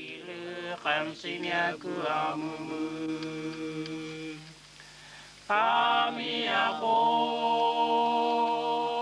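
Music of voices chanting long held notes that slide into pitch; it thins out about halfway through, then comes back in louder.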